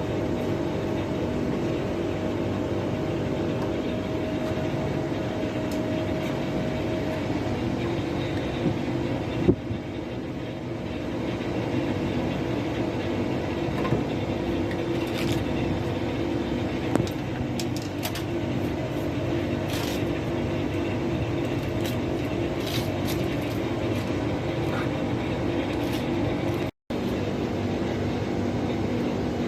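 Carrier 60,000 BTU air conditioner running with a steady mechanical hum made of several held tones over a low rumble. A few sharp clicks or knocks come through in the middle. The sound cuts out for a moment near the end.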